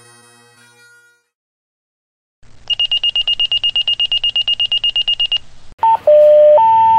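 Fire dispatch alerting tones: a rapid, high-pitched beeping at about ten beeps a second for nearly three seconds, then a loud tone-out of a short high tone, a lower tone, and the high tone held, the alert that comes before a dispatcher's call to the station.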